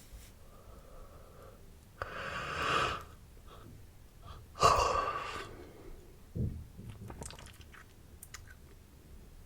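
A person yawning: a long breathy in-breath that grows louder, then a louder sighing out-breath with a hum in it that starts suddenly and fades away. A few faint mouth clicks follow near the end.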